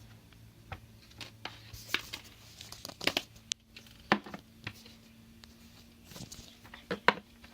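Hands handling Play-Doh and its plastic tubs, making irregular crinkling with scattered sharp clicks and taps.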